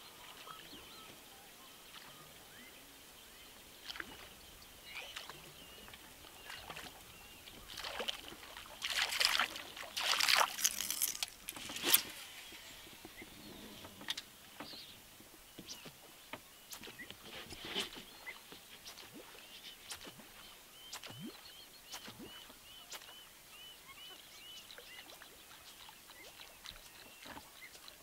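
Small boat on calm lake water, with scattered knocks and light splashes. A louder cluster of splashing and knocking comes about nine to twelve seconds in, and a quick, regularly repeated high chirping from a bird or insect can be heard near the end.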